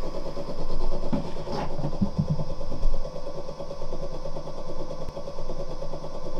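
Small DC motor spinning the launcher's rubber-tyred wheel with a steady whine and hum, as a tennis ball drops through the plastic tube. A few brief knocks and a low thump come between about one and three seconds in as the ball meets the wheel. The builder's friend judges this small motor and wheel too weak to launch the ball any distance.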